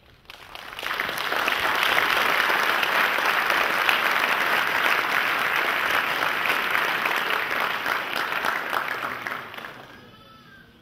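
Large congregation applauding. The clapping builds up within the first second, holds steady and dense for about eight seconds, then dies away near the end.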